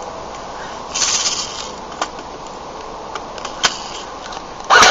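Airsoft Thompson M1A1 firing: a short hissing burst about a second in and a few single sharp clicks, then a loud fully automatic burst of rapid clicking shots starting near the end.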